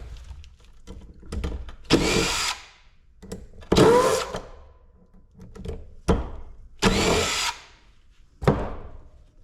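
Metalwork on a scrapped compressor's steel parts: about five loud, sudden bursts of tool noise, each lasting about half a second, with metal ringing after the hits.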